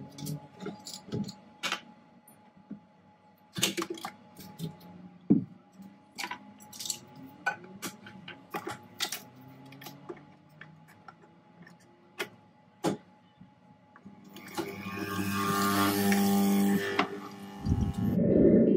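Kitchen handling sounds: scattered clicks and knocks of a cupboard door, cup and coffee capsule being handled. About 15 s in, a capsule coffee machine runs for a couple of seconds with a steady buzzing hum and hiss, and a loud low whoosh follows just before the end.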